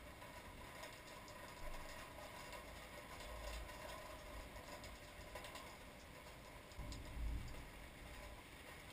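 Thunder rumbling faintly and low, twice, the second rumble near three-quarters of the way through the louder one, over a faint hiss with scattered light ticks.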